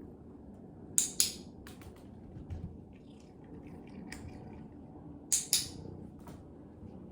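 Two pairs of short, sharp clicks, the first about a second in and the second a little past five seconds, the two clicks of each pair a fraction of a second apart, over a low room hum.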